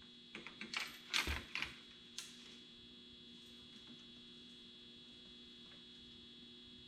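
A handful of quick clicks and rattles from handled gear in the first two seconds, then a faint steady hum.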